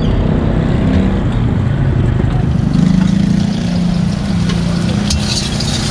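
Chopped onions being stir-fried in a wok: a metal ladle scrapes and tosses them, and the frying hiss grows louder near the end. Under it runs a steady low rumble.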